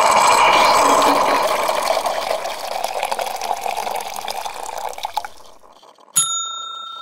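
Liquid being poured in a steady stream that tapers off over about five seconds, then a single sharp ding about six seconds in that rings on.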